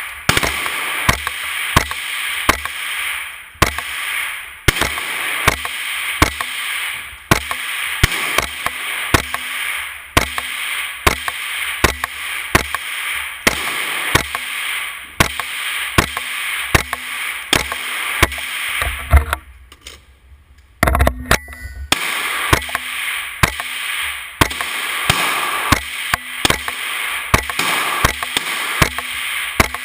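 Gunshots fired in quick succession, sharp cracks mostly one to two a second over a steady hiss, with a short pause a little past the middle.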